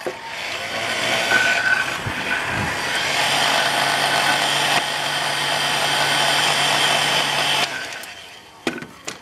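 Handheld electric heat gun blowing hot air onto a strip of PVC plastic to soften it for bending: a steady rush of air over a low motor hum. It comes up to speed over the first second and is switched off about 8 seconds in, winding down.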